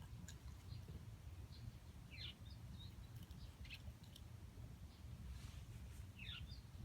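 Faint, brief bird chirps, a few of them short falling notes, over a low steady rumble, with a few soft clicks.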